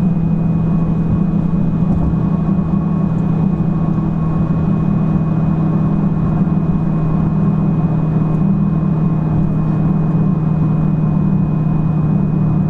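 Dodge Charger's engine and road noise droning steadily inside the cabin while cruising at an even speed.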